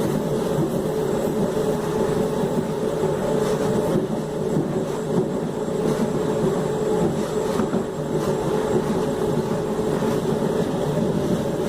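Traction motors of a Mafersa/Hitachi Series 1700 electric multiple unit running steadily, a continuous whine held at one pitch over the train's running noise.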